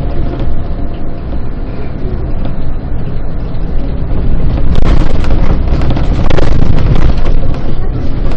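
A bus under way: a steady low engine and road rumble. About five seconds in it grows louder and harsher, with many small knocks and rattles.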